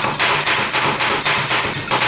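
Two metal ice cream spatulas chopping cream and Oreo pieces against the steel cold plate of a rolled ice cream machine, a rapid run of metal-on-metal taps at about four strikes a second.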